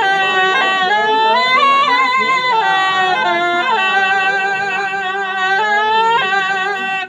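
Kèn, a Vietnamese double-reed shawm with a flared bell, playing a slow melody of held, wavering notes joined by pitch slides; the playing stops abruptly at the end.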